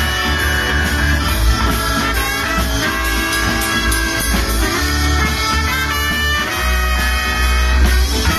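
Live band playing an upbeat boogie-blues number with horns (saxophone and trombone), accordion, fiddle, electric guitars, bass and drums, loud and continuous.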